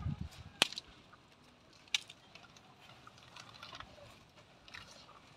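Quiet outdoor background with two sharp clicks, about half a second and two seconds in, and a brief low rumble at the very start.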